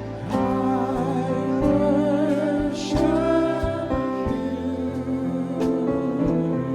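Church worship music: sustained keyboard chords and bass with a singing voice wavering over them, and occasional drum hits.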